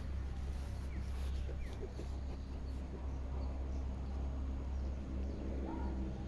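Goats at feeding time, with one short call near the end over a steady low rumble.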